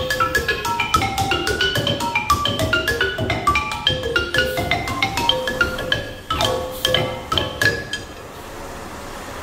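Balangi, a West African wooden xylophone, played with mallets in a quick run of struck, short-ringing notes. The playing stops about eight seconds in.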